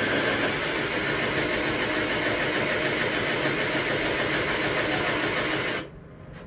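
A power tool's motor running steadily under load, stopping abruptly about six seconds in.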